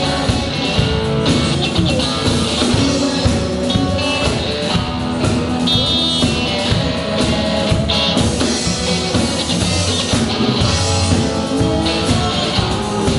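A band playing rock music, with guitar over a drum kit.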